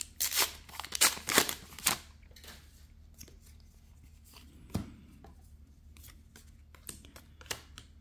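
A trading-card booster pack wrapper being torn open with a run of sharp crinkling in the first two seconds, then quieter handling of the cards: light clicks and a soft thump about five seconds in.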